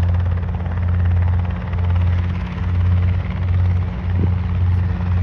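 Helicopter running as it moves off for takeoff: a steady low drone that swells and dips in loudness about once a second.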